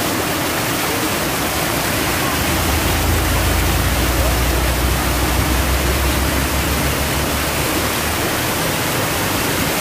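Stream water rushing over a small concrete weir and rocks, a steady full hiss. A low rumble rises under it from about three to eight seconds in.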